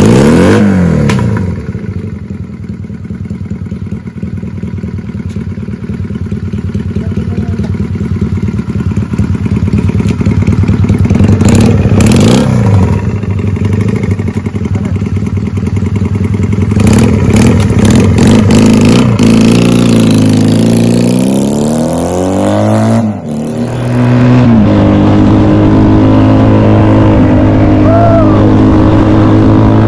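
Honda Benly 125T's parallel-twin engine breathing through a pair of cheap second-hand silencers. It is blipped sharply twice while standing, then pulls away with the pitch rising and dropping through several gear changes, and settles into a steady cruise for the last few seconds.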